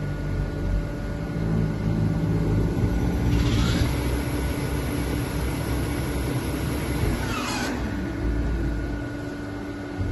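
Colchester Tornado T10M CNC lathe running with a steady hum and rumble. A motor whine rises in pitch about three seconds in and falls away about seven and a half seconds in, as the machine's drives speed up and slow down while the tool turret moves.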